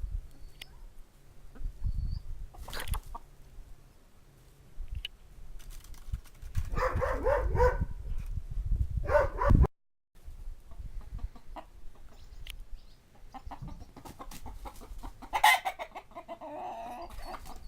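Chickens clucking, with louder bursts of calls about seven and nine seconds in and again near the end, over a low rumble. The sound cuts out briefly about ten seconds in.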